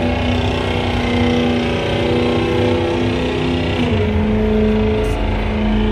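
Car engine held at high revs, its pitch steady and then dipping slightly about four seconds in.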